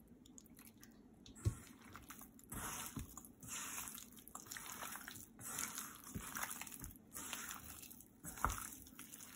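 Hand mixing chicken pieces into a thick, wet coating of corn flour and flour in a steel bowl: faint, irregular wet squelching with a few sharp clicks.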